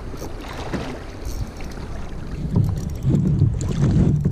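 Wind buffeting the microphone over water noise around a kayak at sea, a low rumble that grows louder in the second half.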